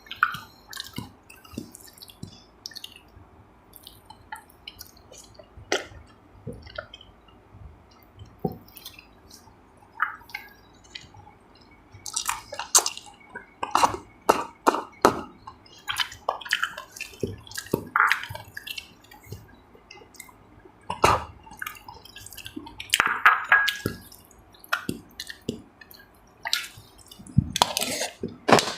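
Close-up eating sounds: wet chewing and mouth noises, with many short, sharp, irregular clicks that come thicker in the second half.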